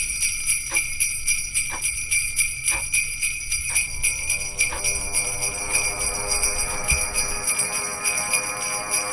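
Jingle bells shaken in a fast, steady rhythm as part of an intro music track, with a light beat about once a second; a sustained chord comes in about four seconds in.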